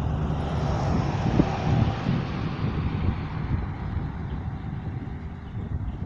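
A passing vehicle: a rushing noise that swells about a second in and then fades away.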